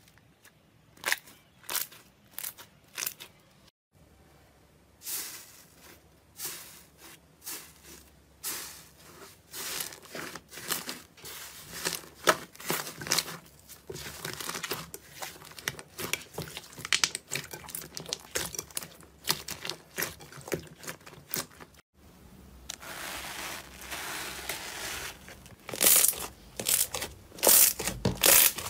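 Slime being squeezed, kneaded and pressed by hand: irregular runs of sticky crackles and sharp pops as trapped air bursts, with the loudest pops near the end. The sound breaks off briefly twice.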